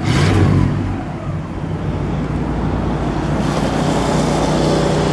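1960 Cadillac Series 62's 390 V8 heard at the exhaust: a quick rev right at the start that falls back within a second to a steady idle, with the low, boat-like sound of its idle.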